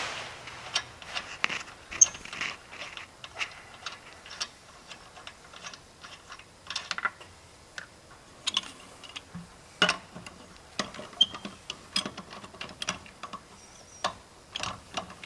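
Lug nuts being worked loose and unscrewed from a car wheel, giving irregular light metallic clicks and clinks.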